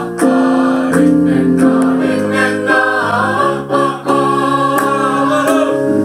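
Mixed choir singing in close harmony, holding sustained chords that move to a new chord every second or so.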